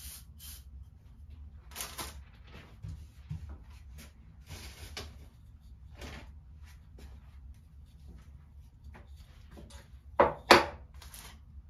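Scattered rustling and handling noises in a small room, then two sharp knocks close together about ten seconds in, the loudest sounds here.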